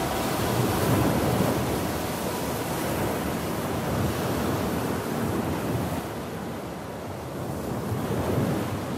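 Stormy sea ambience: waves surging with wind, ebbing and then swelling again near the end.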